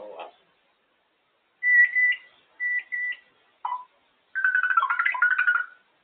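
African grey parrot whistling: one held whistle about one and a half seconds in, two shorter whistles, a brief lower note, then a warbling run of rapid notes lasting about a second and a half.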